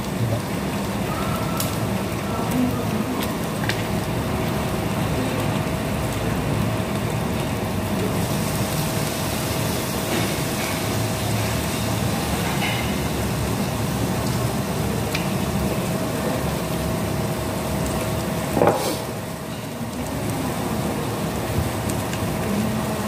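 Meat sizzling on a tabletop grill pan: a steady hiss with a faint steady hum under it and a few light clicks. A sharp clack comes about nineteen seconds in, after which the hiss drops a little.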